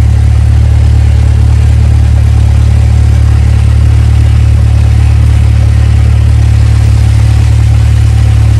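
Cessna 172's piston engine and propeller running steadily on the ground, a loud constant drone heard from inside the cockpit.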